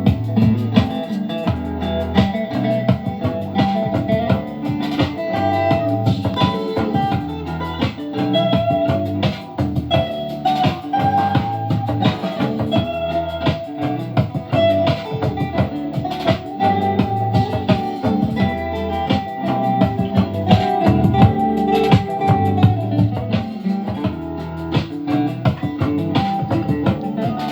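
Music with guitar, bass and drums playing back through an AKAI SS023A-X10 speaker.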